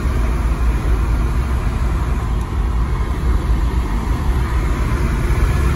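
Steady road and engine noise inside a moving car's cabin, a low, even rumble with no distinct events.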